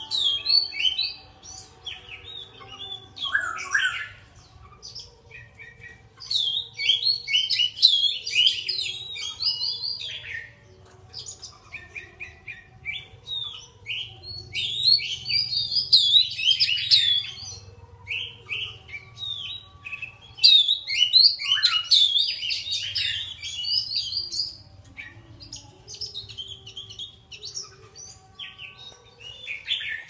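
Caged songbird singing: loud bouts of rapid, high chirps and trills a few seconds long, separated by quieter stretches of scattered notes.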